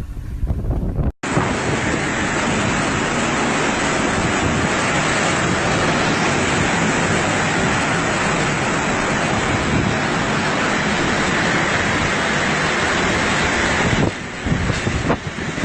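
Strong hurricane wind blowing against the microphone: a loud, steady rush of wind noise that begins abruptly about a second in, after a cut.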